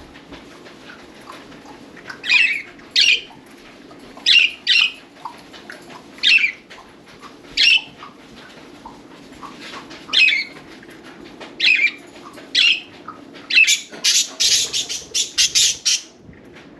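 Budgerigars calling: short loud chirps, one every second or so, then a quick run of chirps near the end.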